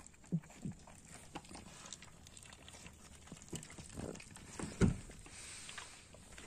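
Puppies eating dry kibble from a metal dish: irregular crunching and chewing with small clicks and knocks, and one louder knock a little before the end.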